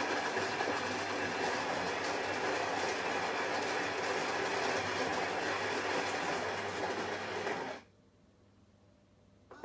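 Gaggia Brera bean-to-cup espresso machine's built-in ceramic burr grinder grinding fresh beans for one full-strength espresso shot: a loud, steady grinding noise that cuts off suddenly about eight seconds in. This is the first stage of the brew cycle, before any coffee is dispensed.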